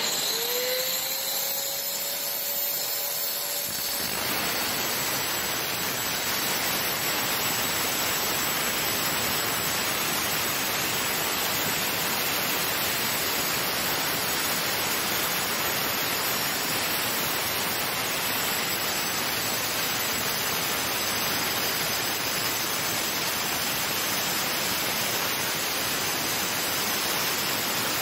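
DeWalt angle grinder with a diamond turbo blade cutting a slot across a crack in a concrete floor, with a vacuum hose on its guard pulling away the dust. The first few seconds hold a lighter hiss and a whine rising in pitch. From about four seconds in, a dense, steady grinding noise takes over.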